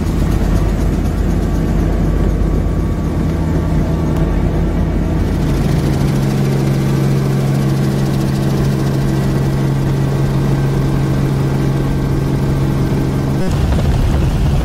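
Helicopter engine and rotor running steadily in flight, heard from inside the cabin. About five seconds in the sound changes to a steadier hum, which cuts off suddenly near the end.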